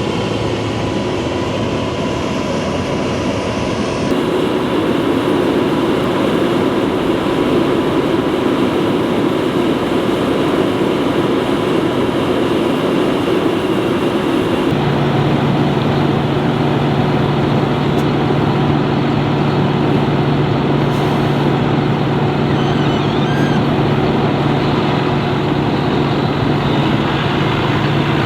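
Heavy diesel farm machinery running steadily, a continuous engine drone with a low hum. The sound changes abruptly about four seconds in and again about halfway through, with a lower steady hum coming in.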